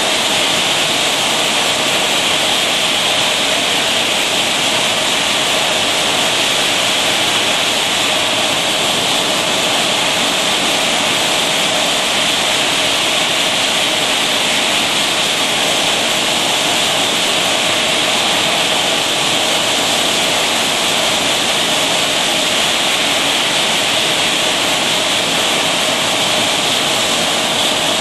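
Steady, even hiss of noise with no rhythm, strokes or separate events, unchanging throughout.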